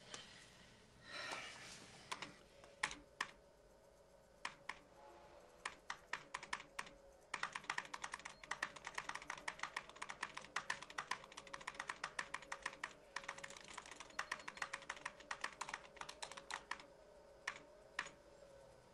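Typing on a compact Macintosh computer's keyboard: scattered keystrokes at first, then a fast unbroken run of keys from about seven seconds in to about seventeen seconds, then a few last taps. A faint steady hum lies under the typing.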